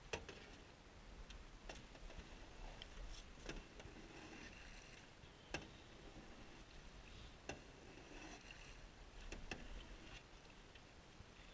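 A small boat being paddled across a pond: a light knock about every two seconds as each stroke is taken, with faint water swishing between the strokes.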